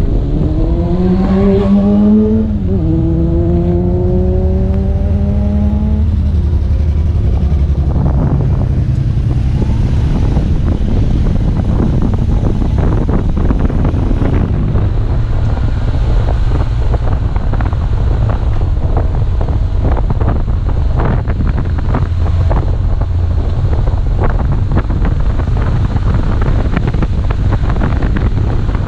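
Wind buffeting a helmet-mounted camera's microphone on a moving motorcycle, a steady rumble with frequent small knocks. Over the first few seconds the BMW R1200GS's boxer-twin engine rises in pitch. It drops once at an upshift about two and a half seconds in, then rises again until about six seconds in.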